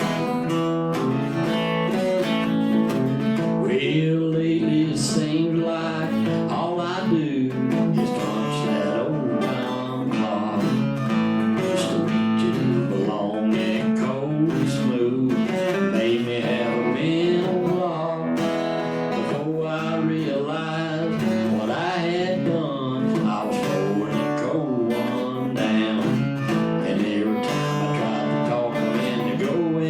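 Acoustic guitar strummed and picked in a live country song, a steady full-band-free accompaniment with regular strums.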